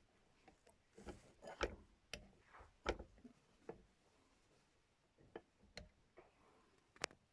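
Faint, irregular light clicks and knocks, a dozen or so scattered over several seconds, with a few sharper ones among them.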